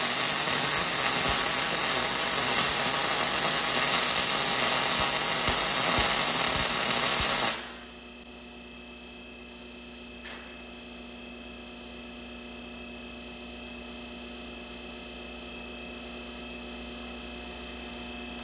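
MIG welding arc crackling and hissing steadily as weld is built up on a preheated steel shaft, stopping abruptly after about seven and a half seconds. A much quieter steady machine hum carries on afterwards.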